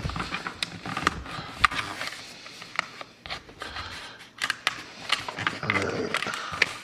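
Packaging of a folding knife being cut and pried open by hand: scattered clicks, scrapes and crackles with no steady rhythm.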